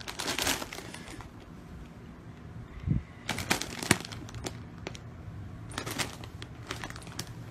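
Plastic snack bags crinkling in several short spells as a hand tugs at them and a cat paws and clutches them, with a soft thump about three seconds in.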